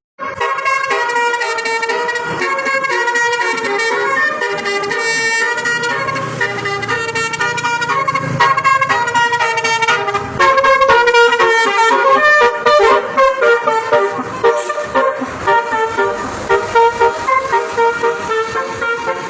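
Indonesian 'telolet' multi-tone bus horn playing a melody, its tones stepping from note to note; from about ten seconds in it sounds in quick repeated blasts.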